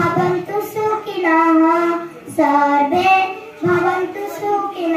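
A young girl singing a patriotic song solo into a handheld microphone, with no accompaniment, in phrases with long held notes.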